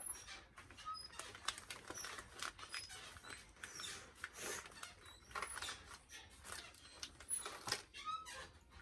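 Plastic packaging and parts being handled: irregular crinkling and clicking with small high-pitched plastic squeaks.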